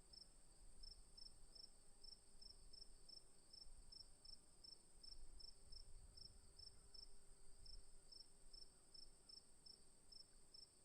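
Crickets chirping faintly: one keeps up a steady, unbroken high trill, while another gives short chirps two or three times a second, often in pairs. A faint low rumble lies underneath.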